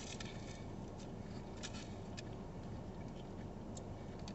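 Faint crinkling and a few light ticks of a paper slip being handled, over the quiet, steady hum of a parked car's cabin.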